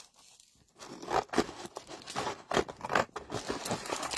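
Scissors cutting through a sheet of white glimmer (glitter-coated) paper: a run of repeated snips starting about a second in.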